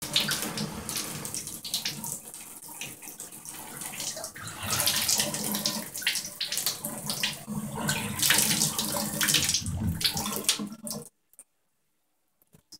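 Water running from a bathtub faucet and splashing into the tub, cutting off abruptly near the end.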